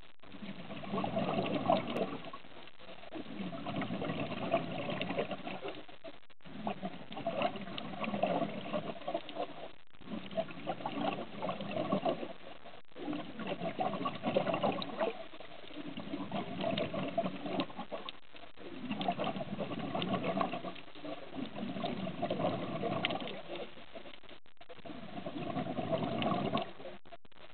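A diver breathing underwater, heard as bubbly bursts that recur every two to three seconds with short quieter gaps between them.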